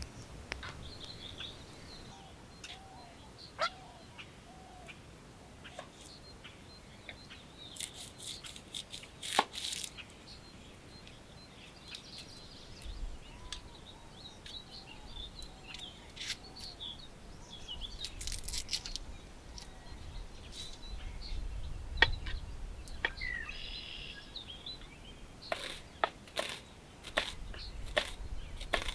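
Scattered sharp clicks and knocks, irregular and sometimes in quick clusters, with faint bird chirps between them.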